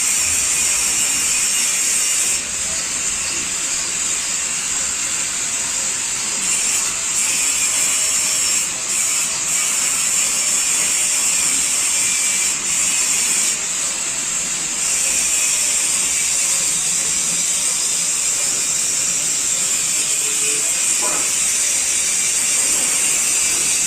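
Electric arc welding on a steel trolley gate: a steady, loud crackling hiss, with a few short breaks in the arc.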